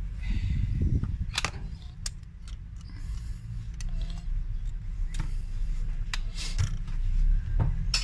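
Handling sounds of an opened smartphone and its detached back cover: scattered sharp clicks and taps as the phone is moved about and laid on the desk, over a steady low rumble.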